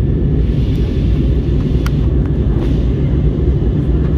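Airbus A321neo cabin noise in flight: a steady, deep rumble of the engines and the airflow. There is a faint click about two seconds in.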